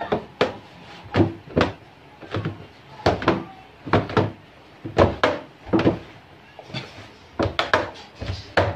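Bread dough being kneaded by hand in a large plastic basin: repeated dull thumps as the dough is pushed, folded and pressed against the bottom and side of the tub, irregular and often in pairs.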